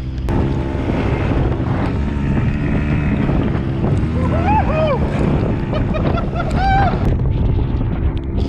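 Motorboat's outboard engine running steadily under a heavy rush of wind on the microphone and waves, as the boat runs through rough water. Two brief rising-and-falling tones stand out, one around the middle and one near the end.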